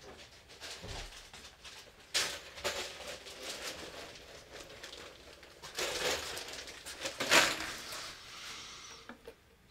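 Handling noise: a series of brief scraping and rustling sounds, the loudest about seven seconds in.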